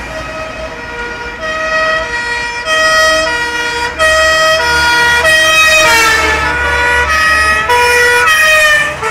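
Two-tone sirens of fire vehicles passing at close range, alternating steadily between a high and a low note, with a low truck-engine rumble beneath. The sirens grow louder about four seconds in, and around six seconds in their pitch slides down as a vehicle goes by.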